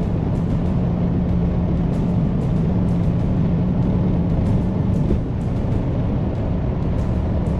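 Steady low drone of a truck driving on the road, engine and road noise, with background music playing over it.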